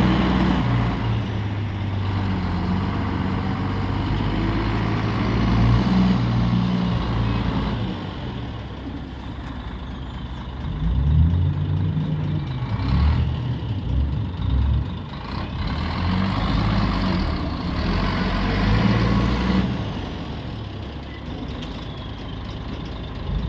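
Diesel engine of heavy log-handling machinery running and revving up and down as it works, with several louder surges.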